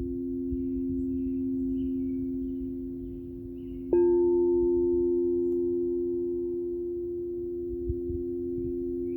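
Singing bowls ringing with two steady, sustained tones. About four seconds in, a bowl is struck, giving a sudden louder ring with a higher tone that fades away over the next few seconds. Faint bird chirps sound now and then above the ringing.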